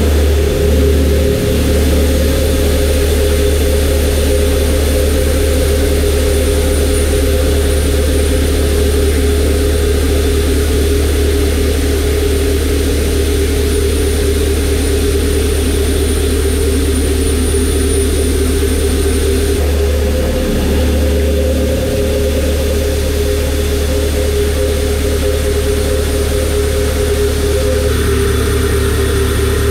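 Kennametal Dodeka 4-inch shell mill on a Makino a81nx horizontal machining center taking a roughing face cut in 6Al-4V titanium: a steady low hum with steady tones above it, under the continuous hiss and spatter of flood coolant.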